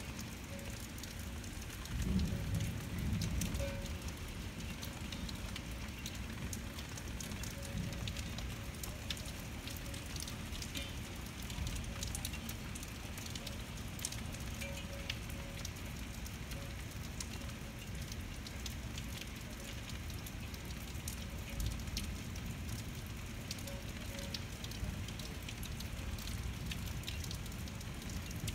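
Steady rain falling, with many small taps of drops hitting surfaces. A brief low rumble comes about two seconds in.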